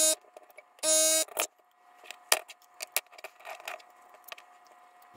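S-993A electric desoldering gun's built-in vacuum pump buzzing in two short bursts, one at the start and one about a second in, sucking molten solder off the circuit board's pins. Light clicks and taps follow as pliers work the board loose.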